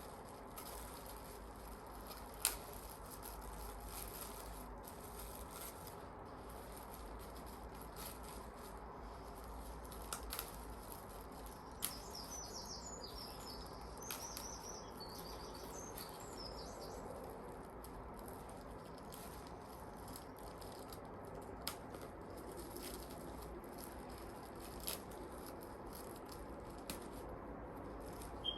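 Faint handling sounds of sphagnum moss and plastic wrapping being pulled off a plant's roots: light rustling with scattered sharp clicks, the loudest about two seconds in. A run of faint high chirps comes around the middle.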